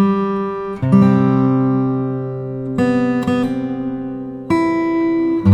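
Acoustic guitar music: five chords strummed a second or two apart, each left to ring and fade.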